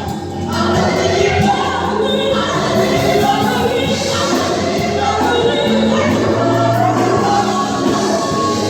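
Gospel choir singing with instrumental accompaniment over a steady bass line.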